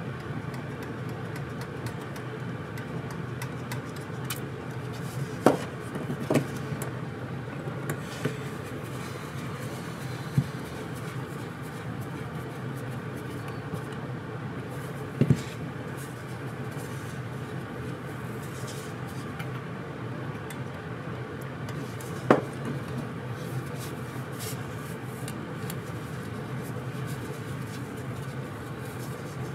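Small metal carburetor parts and a screwdriver being handled and knocked against the bench: about half a dozen sharp clicks and taps scattered through, over a steady background hum.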